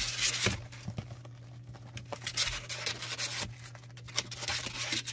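Plastic-backed puppy training pads crinkling and rustling in irregular bursts as they are disturbed, over a faint steady low hum.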